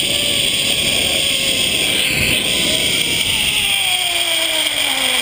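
Zipline trolley pulleys running along a steel cable, a steady whirring hiss with a thin whine. The whine sinks in pitch, more steeply in the last second or two, as the rider slows on the approach to the landing platform.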